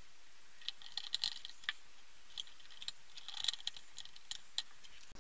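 Light, irregular clicks and taps of small plastic parts and a small Phillips screwdriver being handled, with brief clusters of clicks about a second in and past the middle, as a brush motor is screwed into a robot vacuum's brush housing.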